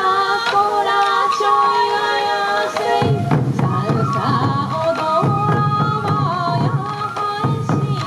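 Sansa Odori festival music: large taiko drums carried by the dancers beaten in a steady rhythm under a high sustained melody. The drumming comes in heavier about three seconds in.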